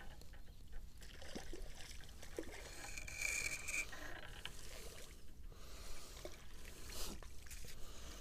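Close handling noise: a hand, sleeve and fishing rod rubbing and scraping against the camera, with small clicks, over a steady low wind rumble. A short high whine comes about three seconds in.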